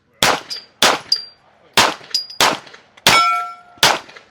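Glock pistol fired about six times at an uneven pace of roughly one shot every half second to second, with sharp metallic rings between shots from bullets striking steel plate targets.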